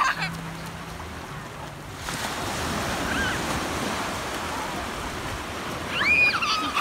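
Small waves breaking and washing up onto a sandy beach, the surf swelling about two seconds in. A young child's high squeals cut through briefly about three seconds in and again, louder, near the end.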